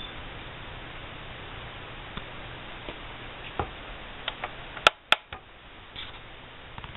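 Light clicks and taps of a plastic water filter being handled and set on a scale, with two sharp clicks close together about five seconds in, over a steady low hiss.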